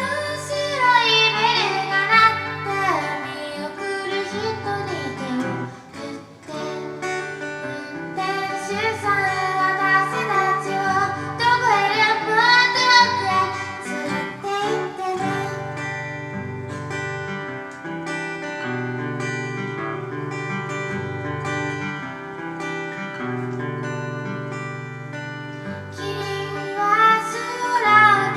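A woman singing a song live to guitar accompaniment. Her voice drops out for about ten seconds past the middle while the guitar plays on, then comes back near the end.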